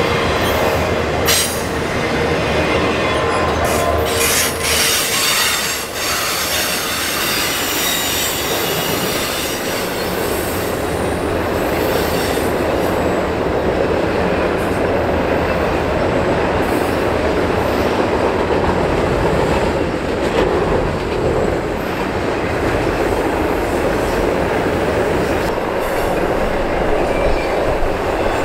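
Two double-stack intermodal freight trains rolling past at once, one on the curving track close by and one crossing the bridge overhead, a steady rumble of wheels on rail with wheel squeal and a few sharp clanks in the first six seconds. The nearer train's last cars go by about halfway through, leaving the duller rumble of the train on the bridge.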